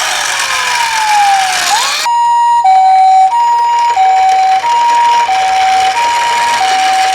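Ambulance siren: a falling wail that swoops back up, then about two seconds in it switches to the two-tone hi-lo 'pii-poo' pattern of a Japanese ambulance, alternating between two pitches, each held about two-thirds of a second. A steady hiss runs underneath.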